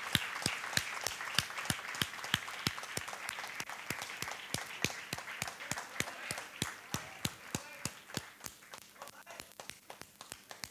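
Audience applauding, dense at first and thinning to a few scattered claps as it dies away.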